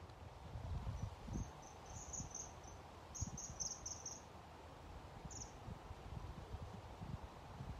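Wind buffeting the microphone in uneven gusts, with a few short, high chirps in quick groups between one and four seconds in and a single one a little past five seconds.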